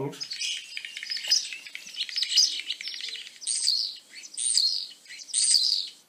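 Recorded common starling song: a dense run of rapid clicks, rattles and whistles, then three short high whistled phrases about a second apart.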